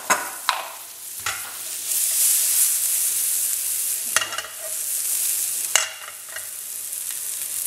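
A few light clinks near the start, then diced calabresa sausage sizzling in a frying pan in its own rendered fat, a steady high hiss broken by a couple of sharp clicks.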